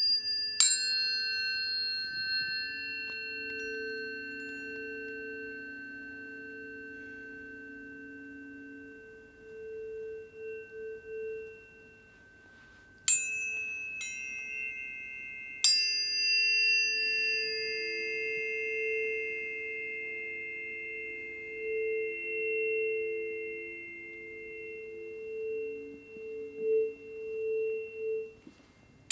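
Planetary tuning forks struck and left ringing: each strike gives a brief metallic clang, then several pure, sustained tones overlap and slowly fade. New strikes come at the start, about a second in, and again around 13 and 16 seconds in, and the combined tone swells and wavers.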